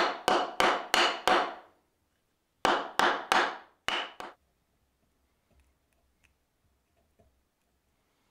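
Axe head being seated onto its wooden handle: about ten sharp knocks with a short metallic ring, coming about three a second in quick runs and stopping about four seconds in. After that only a few faint small handling noises.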